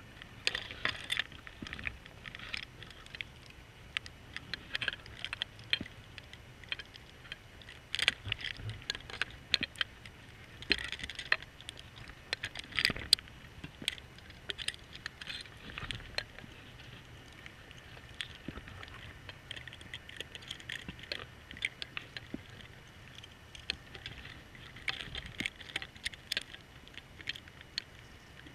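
Underwater audio from a GoPro on a diver propulsion scooter: a faint steady low hum of the scooter's motor, with frequent irregular clicks and crackles and short hissing bursts every few seconds.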